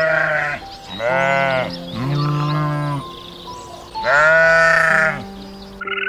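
Sheep bleating: four long, wavering calls, the first already under way, over background music with held notes.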